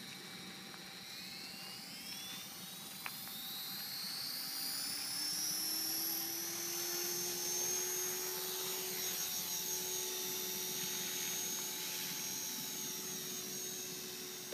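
Align T-REX 450 electric RC helicopter spooling up. The brushless motor whine and the rotor tone rise in pitch over a few seconds, then hold steady at flying speed.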